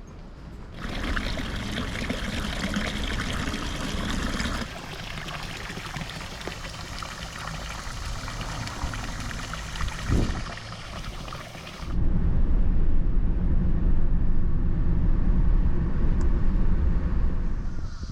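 Flowing water, a steady rushing and trickling, in several cut-together takes; the sound changes abruptly a few times and turns louder and deeper for the last six seconds.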